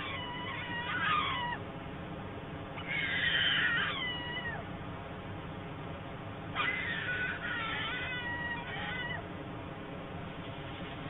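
Cat-like mewing calls, likely from the young white storks: three bouts of high, overlapping calls that slide down in pitch, each lasting one to three seconds. A steady low hum lies under them.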